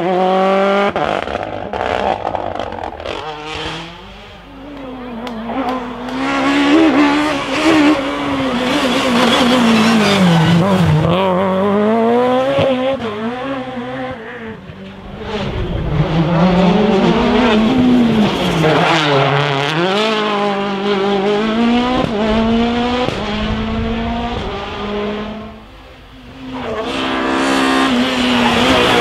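Rally cars' engines revving high and dropping back through gear changes as they pass, one car after another, the sound falling away briefly between them.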